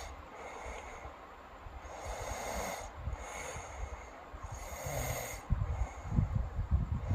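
A sleeping girl snoring, with snorting, noisy breaths about two, three and five seconds in over a low rumble.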